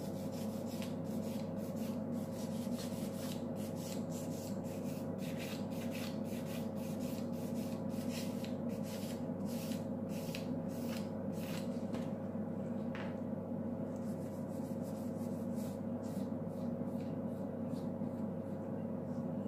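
Nail file rubbed back and forth over plastic nail tips, in quick scratchy strokes about two or three a second, pausing briefly about two-thirds of the way through. A steady low hum runs underneath.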